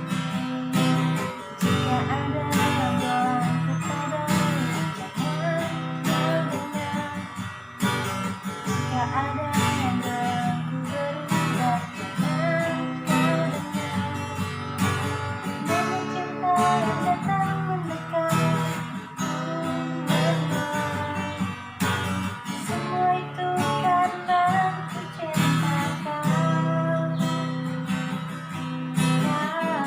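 Acoustic guitar strummed in a steady rhythm, accompanying a woman singing a melody.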